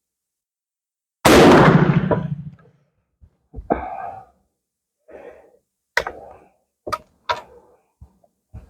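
One shot from an IAB Sharps .45-70 single-shot rifle firing a 474-grain cast lead bullet: a single loud report about a second in that dies away over a second and a half. It is followed by several sharp metallic clicks and short handling noises.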